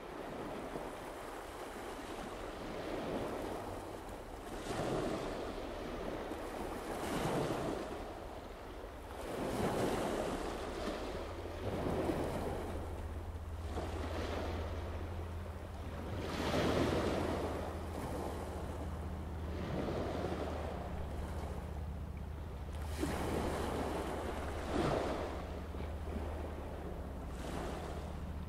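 Sea waves washing in, one swell every two to three seconds, over a steady low hum that grows stronger about a third of the way through.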